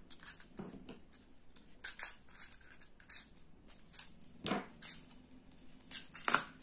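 Small plastic pin box and sticky tape being handled, with crinkly rustles and clicks. There is a scissors snip about four and a half seconds in, and a sharper knock near the end as the box is set down on the table.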